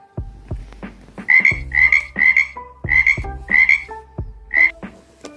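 Frog croaking, six short croaks in an uneven series starting about a second in.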